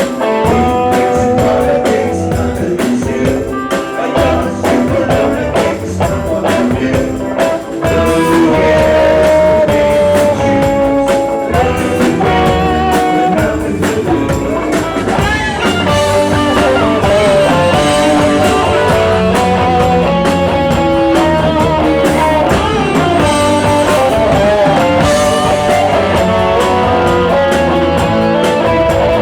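Rock music with guitar and drums; the band grows fuller and louder about eight seconds in.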